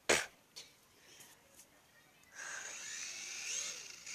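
A sharp click, then from about two seconds in the small electric motor of an old toy radio-controlled helicopter spins up to a steady high whine, its pitch curving upward.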